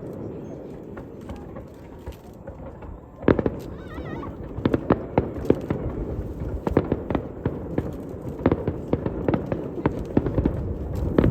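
Fireworks bursting: a low rumble, then a sharp bang about three seconds in, followed by a dense, irregular run of bangs and crackles.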